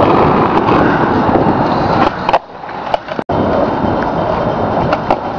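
Skateboard wheels rolling over rough parking-lot asphalt, a loud close rumble that drops away about two seconds in. After a sudden cut a little later, rolling noise comes back with scattered sharp clicks.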